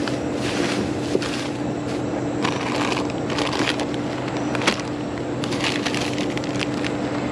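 Plastic bags and snack packaging crinkling and rustling in repeated bursts as gloved hands rummage through them, with a few sharp crackles. A steady low hum runs underneath.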